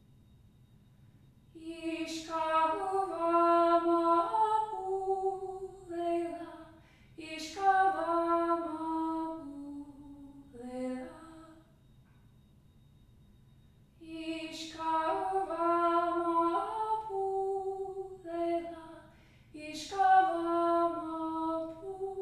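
A woman singing a slow melody in phrases a few seconds long, holding each note, with short pauses between phrases.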